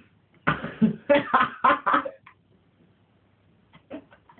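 A person coughing in a quick run of about six short bursts, then a few faint short clicks near the end.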